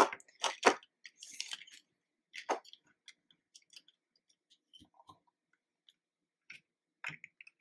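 Small plastic CAT Mini Worker toy construction vehicles being handled and pushed down: scattered clicks and knocks, several in the first second or so and a few near the end, with faint ticks between.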